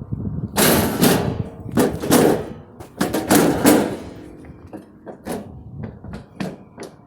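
Sledgehammer blows on an old vending machine: about seven heavy impacts in the first four seconds, each with a short ring, then lighter knocks and rattles.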